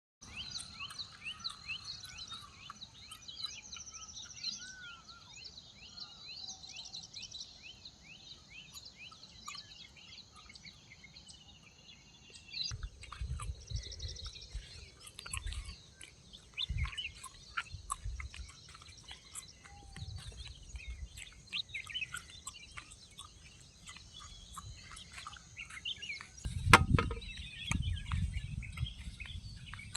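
Several songbirds chirping and singing, with quick runs of repeated notes in the first few seconds. From a little before halfway, low rumbling gusts come and go beneath the birdsong, and a single sharp knock stands out near the end as the loudest sound.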